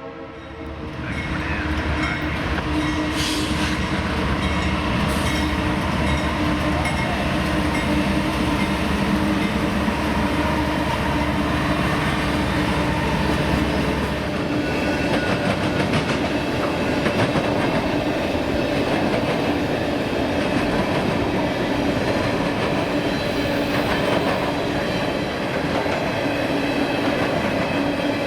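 Freight train passing close by: a low locomotive engine rumble that drops away about halfway through, then the cars rolling past with wheels clattering over the rails and the diamond crossing.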